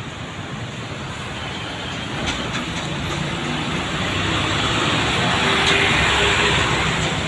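Road traffic: a vehicle approaching and passing close by, its engine and tyre noise swelling to a peak about five to six seconds in, with no horn sounded.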